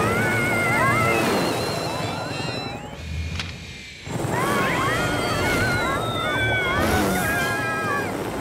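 Cartoon soundtrack: high-pitched, squeaky chatter from the cartoon ants over the steady whir of a toy quadcopter drone's propellers. The whir drops away briefly about three seconds in.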